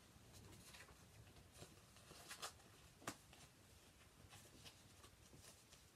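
Near silence with faint handling noises of the steelbook packaging and its contents: scattered light rustles and clicks, one sharper click about three seconds in.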